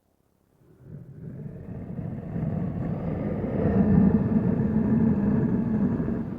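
Mechagodzilla monster sound effect: a low, rough mechanical rumble with a faint hum in it, swelling up from silence about half a second in and holding strong before starting to fade near the end.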